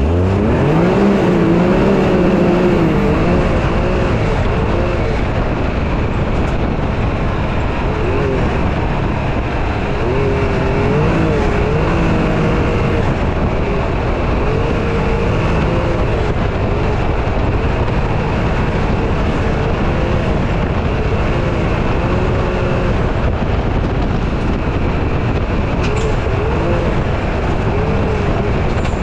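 Can-Am Maverick X3 side-by-side driven hard on a gravel track, heard from the cab. Its engine runs continuously, revs rising and falling, over a steady rush of tyre and wind noise.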